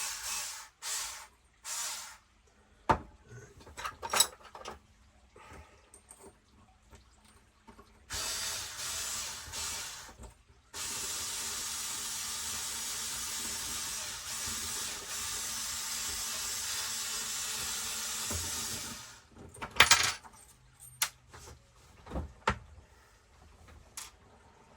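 A few short hisses, then a steady hiss lasting about eight seconds, with clicks and knocks from small parts and tools handled in between.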